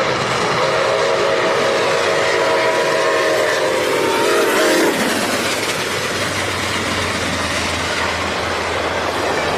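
Milwaukee Road #261 steam locomotive's chime whistle sounding a long blast that dips slightly in pitch and stops about five seconds in as the locomotive passes at speed. It is followed by the steady rumble and clatter of the train rushing by.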